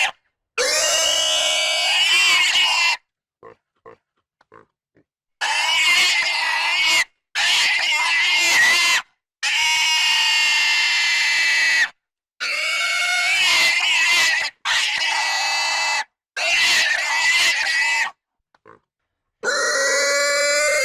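A domestic pig squealing intensely: a string of about seven long, shrill, wavering squeals, each a second and a half to two and a half seconds long, with short silences between them and a few faint grunts in the gaps.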